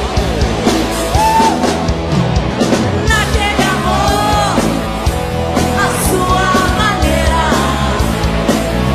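Live band playing a rock song with drums, with a man and a woman singing lead vocals.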